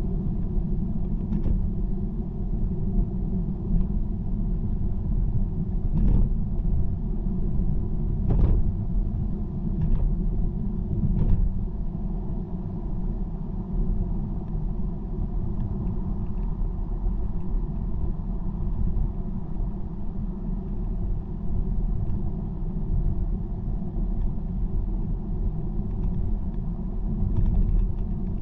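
Car running at motorway speed: a steady low rumble of tyre and road noise, with a few brief knocks in the first half.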